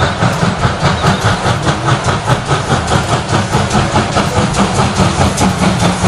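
Steam locomotive working hard, its exhaust chuffing in a rapid, even rhythm.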